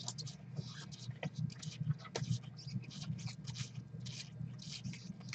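Glossy trading cards sliding against one another as gloved hands flip through a pack, making repeated short swishes, a few a second, over a low steady hum.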